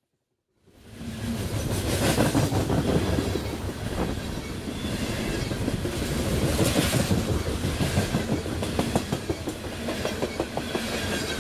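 Freight train of hopper cars passing close by: steel wheels clattering over the rail joints in a dense, rapid clickety-clack over a steady rush, fading in about a second in.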